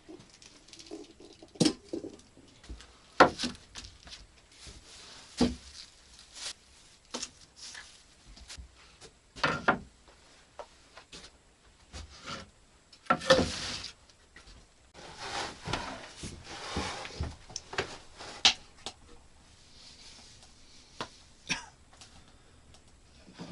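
Irregular knocks, clicks and rustling, as of objects being handled and set down, with a longer scraping spell a little past the middle.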